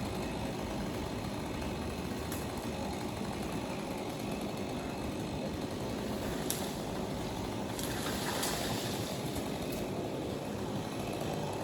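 A steady engine rumble at idle, with a few faint clicks about two-thirds of the way through.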